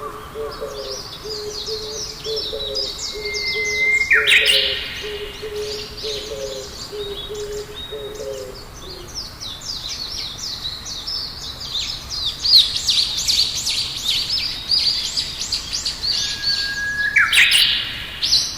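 Several birds singing with rapid high chirps and trills. A series of low, evenly repeated hoots runs through the first half. A long whistled note followed by a louder chirping burst comes about four seconds in and again near the end.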